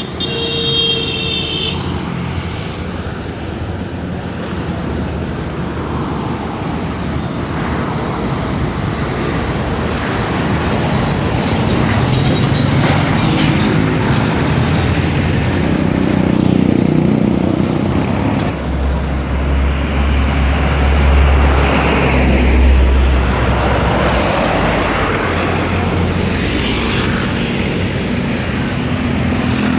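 Road traffic with heavy vehicles such as buses and trucks passing: a brief high-pitched tone just after the start, and a deep engine rumble from about nineteen seconds in.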